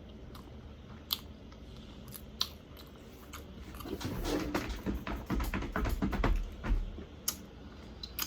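Close-up chewing and biting of hot chicken wings. Scattered sharp clicks come first, then from about four seconds in a louder run of chewing for about three seconds.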